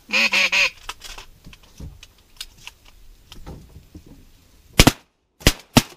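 A quick run of duck quacks at the start, then shotgun shots fired at teal near the end: one shot, then two more close together about half a second later.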